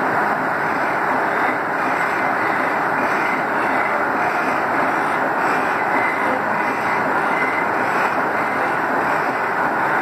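Steam-powered sawmill machinery running, its large circular head saw spinning with no log in the cut; a steady, loud, even mechanical whir and rumble.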